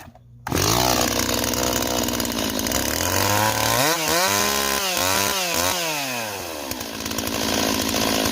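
Stihl 026 two-stroke chainsaw engine catching about half a second in and running. It is revved up and down several times in the middle, then drops back to a steady idle.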